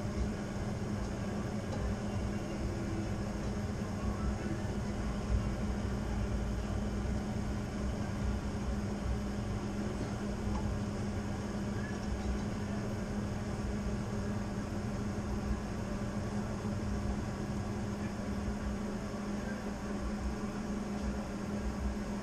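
Steady low machine hum with an even hiss, unchanging throughout, with a few faint knocks.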